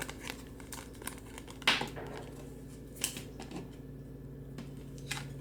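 Soft taps and swishes of Topps Chrome trading cards being handled and flipped through, with a louder swish about two seconds in. A faint low hum comes in at about the same point.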